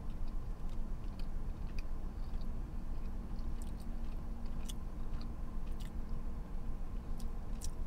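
A person chewing a mouthful of soft fish sandwich (Filet-O-Fish), with small wet mouth clicks scattered throughout, over a steady low hum.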